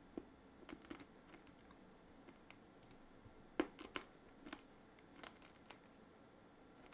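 Faint, scattered clicking of a computer mouse and keyboard, about a dozen short clicks with the loudest about halfway through.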